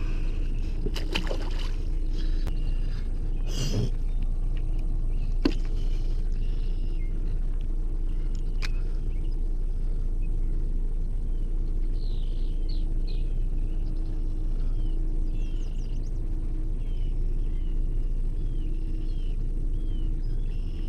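A steady low rumble with a faint hum, with a few sharp clicks in the first several seconds. Birds chirp repeatedly in the second half.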